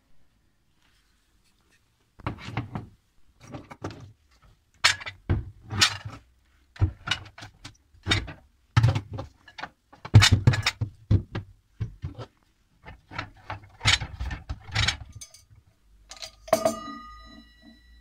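Kitchenware being handled inside a cupboard: a long run of knocks and clatters as a small electric appliance and bowls are moved on a wire shelf. It ends with a short metallic ring that fades away about a second and a half before the end.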